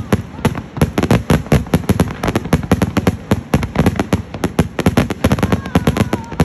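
Fireworks barrage: loud bangs of bursting shells in rapid succession, several a second.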